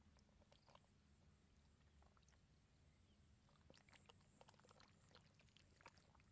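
Near silence: a faint low hum, with scattered faint ticks that grow more frequent in the second half.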